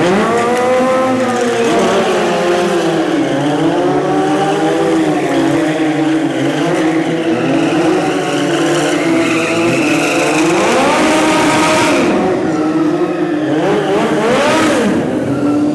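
Sport motorcycle engines revving hard during a stunt ride, the pitch rising and falling again and again over a steadier engine note, with tyre squeal at times.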